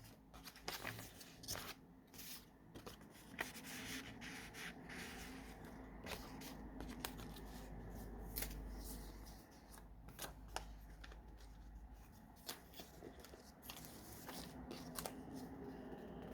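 Paper pages of a handmade junk journal being turned and handled: rustling and crinkling with many short, crisp clicks at irregular intervals.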